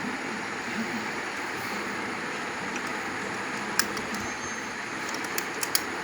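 Hero Honda Splendor motorcycle's single-cylinder engine running with a steady mechanical noise and a few sharp clicks, one about 4 s in and a cluster near the end. This is the abnormal noise the owner traces to the magneto coil.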